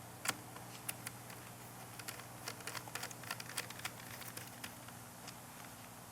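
Faint, irregular light clicks and ticks of a precision screwdriver turning the small screws of a laptop's LCD bracket, busiest in the middle and thinning out near the end, over a faint steady hum.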